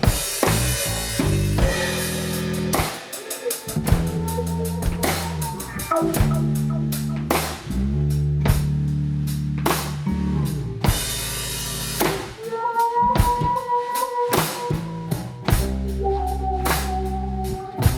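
Live band playing an instrumental passage: drum kit with snare and bass drum hits, electric bass, and guitar that holds long notes in the second half.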